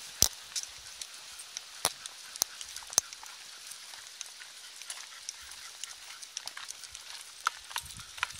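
Footsteps and dogs' paws on a gravel path: a run of small crunches and sharp clicks, a few louder ones in the first three seconds.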